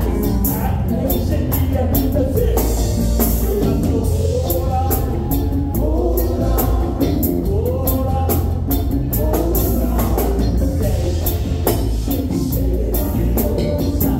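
Live band playing a song with singing: sung vocals over drum kit, electric guitars and keyboard, with a steady drum beat.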